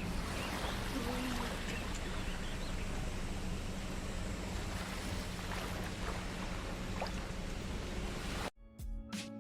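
Small sea waves washing steadily on the beach, with a faint steady low hum underneath. The wave noise cuts off suddenly near the end and plucked-string music begins.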